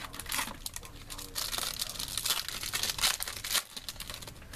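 Foil trading-card pack wrapper crinkling and tearing open as it is handled, a run of dense crackles that stops about three and a half seconds in.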